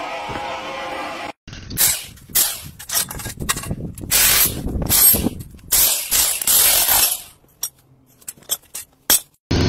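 Electric chipping hammer with a chisel bit hammering against a metal electric motor stator in short, loud, irregular bursts. The bursts thin to a few faint knocks near the end. Before the bursts, during the first second and a half, a steady machine hum cuts off suddenly.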